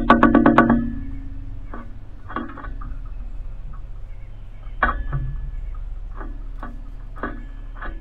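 Background music of plucked guitar-like notes: a quick run of notes at the start, then sparse single notes.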